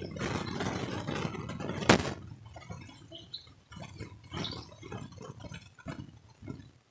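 Metal spatula and slotted spoon scraping and knocking in a blackened iron kadhai as arbi-leaf pakoras fry in oil. A sharp clank about two seconds in is the loudest sound, followed by lighter, scattered scrapes and taps.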